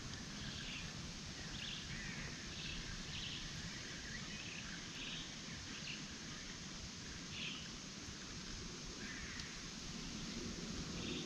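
Outdoor riverside ambience: a steady low rumble with short, high bird chirps scattered through it.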